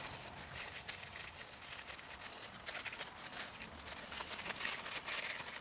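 Paper towel rustling and rubbing as a freshly rinsed turbocharger part is wiped dry, in irregular scratchy bursts that come in three bouts.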